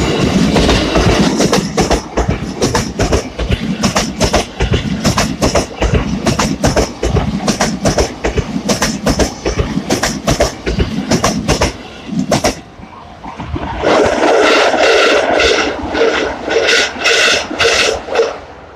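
Trains passing close by on a level crossing: loud rumble and rapid clickety-clack of wheels over rail joints for about twelve seconds. After a short dip, a second loud passing brings a steady tone over rhythmic clacking, and it ends suddenly just before the end.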